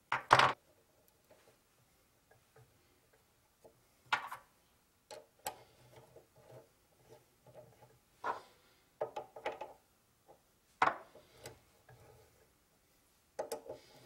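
Sharp metal clicks and knocks from adjusting a mini-lathe's four-jaw chuck by hand: the chuck key seating in the jaw screws and turning them, and the chuck being rotated. Several separate clicks a few seconds apart, each ringing briefly, the loudest near the start and another late on.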